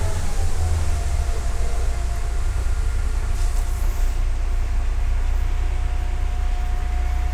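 MAZ-105 articulated city bus running, heard from inside the passenger cabin: a steady low engine rumble with a whine that dips slightly in pitch in the first second, then holds steady.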